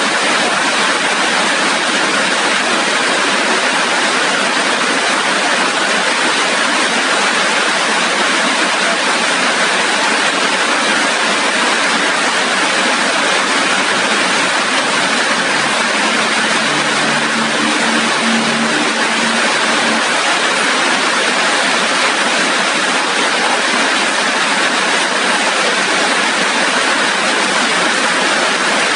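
Heavy rain falling steadily, a dense, even hiss with no letup. A faint low hum comes in for a few seconds in the middle.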